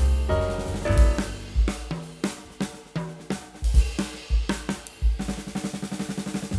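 Background music with a drum kit playing: snare, hi-hat and cymbal hits with bass drum, in a jazzy swing style with piano around it. About halfway through the drums play a fast run of repeated hits.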